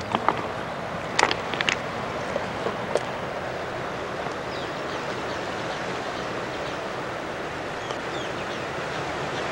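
Steady wash of ocean surf and wind noise, with a few sharp clicks in the first three seconds.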